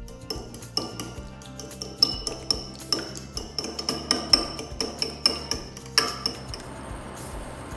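Raw eggs being beaten with a metal utensil in a small ceramic bowl: quick, irregular clinks of metal against the bowl with a light ringing note. The clinks stop about six seconds in.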